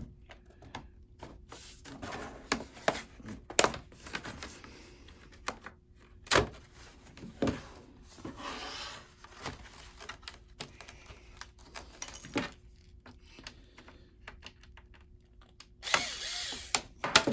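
Laptop's plastic bottom cover being pried off: several sharp snaps as its clips let go, with scraping and rubbing of the pry tool along the seam in between.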